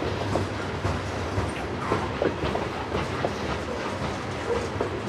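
Loaded coal hopper cars rolling slowly past, their wheels clicking over rail joints with a steady rumble and scattered irregular knocks.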